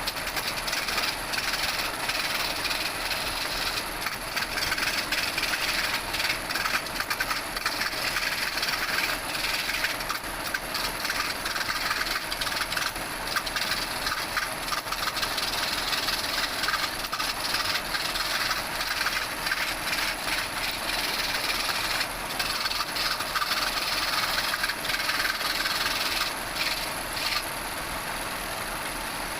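Wood lathe running with a turning tool cutting the spinning wood: a steady, rough hiss that eases off near the end.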